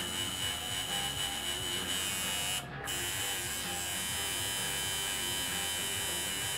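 Coil tattoo machine buzzing steadily while its needle inks the stencilled outline into skin. The buzz cuts out briefly about two and a half seconds in, then resumes.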